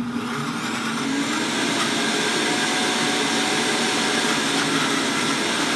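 Instant Pot Ace blender running on its pulse program, blending a cilantro-lime yogurt dressing. The motor builds up over the first second or two, then runs steadily.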